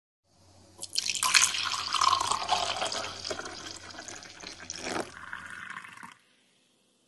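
Liquid pouring and splashing into a mug. It starts suddenly about a second in, is loudest at the start, and cuts off abruptly near the end.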